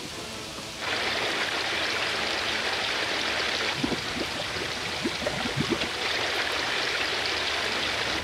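Heavy rain pouring steadily, growing louder about a second in.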